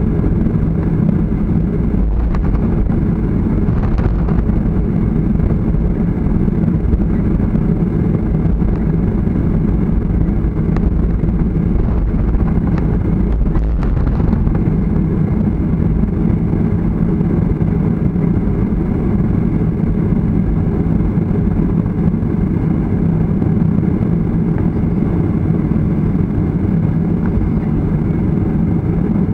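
Jet airliner cabin noise while taxiing: a steady low rumble of the engines at taxi power and the rolling aircraft, heard from inside the cabin.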